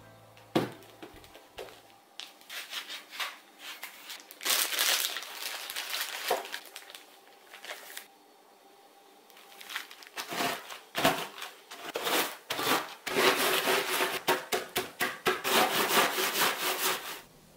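A sharp knock about half a second in, then bursts of crinkling from the biscuit packet's wrapping and a clear plastic bag. After a short pause, Orion Diget digestive biscuits are crushed inside the plastic bag under a wooden rolling pin: dense crunching and crackling, loudest near the end, as they are ground to crumbs for a biscuit base.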